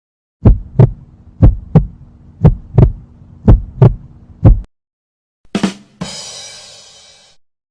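Heartbeat sound effect: deep doubled thumps, lub-dub, about one pair a second, nine beats over a steady low hum. After a brief pause comes a short hit, then a fading crash-like noise.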